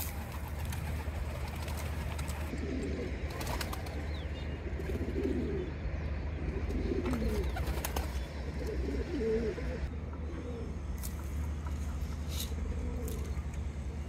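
Domestic pigeons cooing, a run of low rolling coos one after another, over a steady low rumble, with a few sharp clicks.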